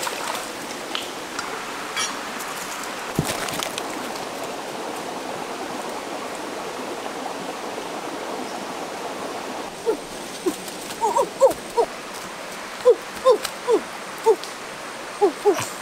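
Shallow stream water running steadily over rocks; from about ten seconds in, a run of short hooting calls, several a second, comes in over it.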